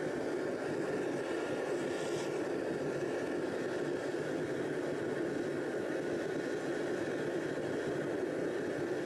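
Small metal-melting furnace running with a steady, unbroken rushing noise while it heats a crucible of aluminium cartridge cases toward melting.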